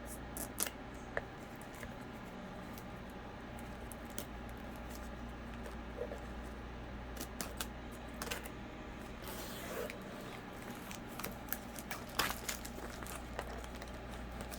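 Scattered light clicks, taps and rustles of a cardboard packaging box being handled, over a steady low hum.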